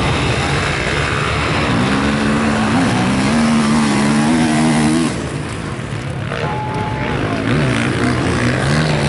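Single-cylinder four-stroke Honda CRF450R motocross bike accelerating hard off a practice start. Its engine note climbs and drops back with each upshift, and after about five seconds it is heard from farther away as it pulls off down the track.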